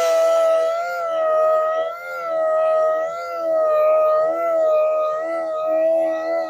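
Power sander running at speed on an alloy wheel, a steady high whine that wavers slightly in pitch as it bears on the rim during fine-grit sanding of curb rash.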